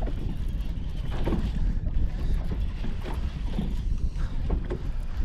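Wind buffeting the microphone on an open bass boat, a steady low rumble with scattered small knocks.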